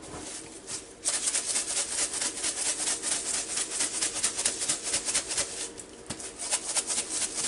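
Dry seasoning granules rattling inside a spice shaker jar as it is shaken: a rapid, steady rattle starting about a second in.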